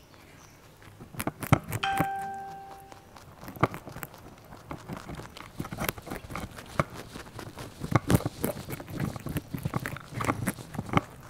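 Rabbits crunching raw cauliflower right next to a clip-on microphone: rapid crisp chewing clicks that grow busier as a second rabbit joins in. About two seconds in, a short ringing tone sounds and fades away within about a second.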